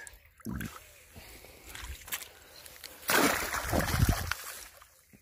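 A crucian carp going into a keepnet in the shallows, water splashing and sloshing for a little over a second about three seconds in.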